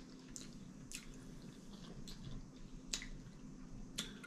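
Faint, wet mouth clicks and smacks of someone chewing a mouthful of omelet: a few short, scattered clicks, one about a second in, another near three seconds and one near the end.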